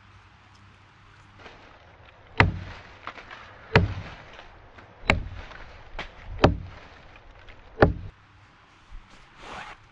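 Gransfors Bruks Wildlife Hatchet chopping into a downed log: five sharp strikes, a little over a second apart, starting a couple of seconds in.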